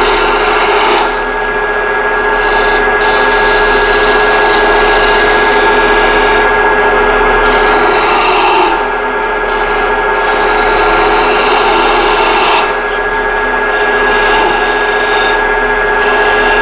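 Detail gouge cutting a wooden spindle on a running wood lathe: the hiss of the cut over the lathe's steady hum, in several passes with short lulls between them.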